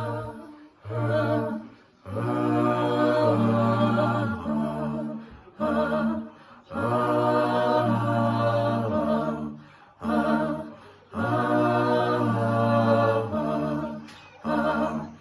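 A cappella vocal group singing a slow introduction in long held phrases over a low sustained bass note, with short breaths between phrases.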